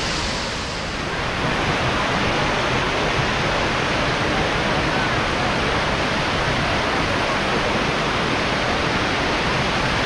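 Steady rush of the Benang Kelambu waterfall, many thin streams spilling down a vine-covered cliff into the pool below. It swells slightly about a second and a half in, then holds even.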